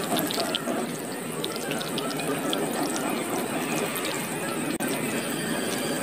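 Water running steadily from the spout of a miniature model hand pump and splashing into a shallow puddle, with a few light drips.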